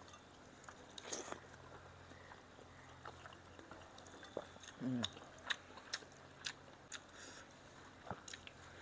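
Close-mic eating sounds from a man eating rice and curry by hand: chewing with scattered sharp clicking mouth sounds. A short, low falling hum from him about five seconds in.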